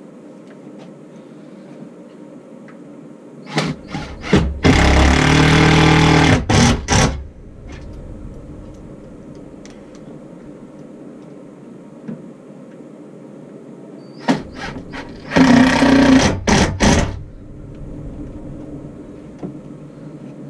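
Cordless drill driving the last two screws through a defibrillator cabinet into a wooden tongue-and-groove wall: two runs of motor whine of about three seconds each, the first about four seconds in and the second about fifteen seconds in, each with short trigger blips around it.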